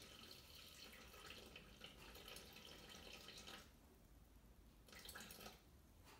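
Water poured from a glass measuring jug into a Thermomix's steel mixing bowl, a faint trickle that stops about three and a half seconds in, with a brief second trickle about five seconds in.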